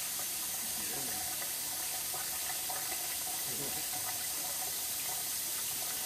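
Kitchen faucet running steadily, its stream splashing onto a conure's feathers and into the sink, with a constant hiss.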